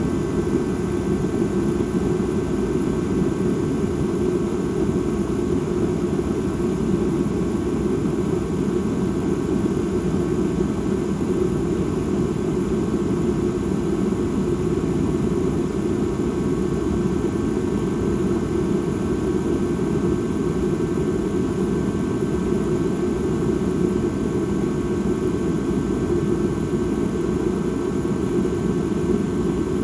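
Ambient drone sound: a steady, unchanging low rumble with no rhythm, its weight in the low end.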